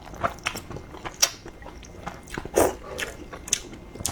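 Chewing and biting sounds of a person eating, a series of irregular short clicks with a few louder ones.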